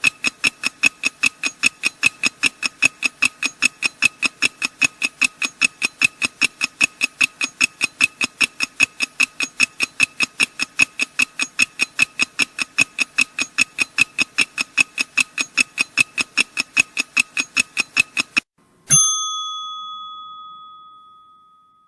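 Countdown timer sound effect: rapid, evenly spaced ringing ticks, about four a second, that stop near the end, followed by a single bell ding that fades out, marking time up for the answer.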